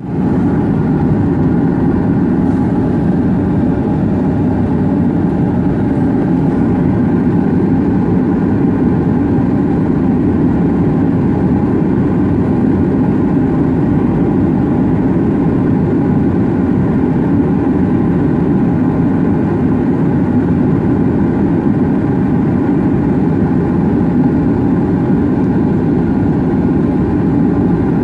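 Single turboprop engine of a Pilatus PC-12 running steadily, heard from inside the cabin as a loud, even drone with no change in pitch or level.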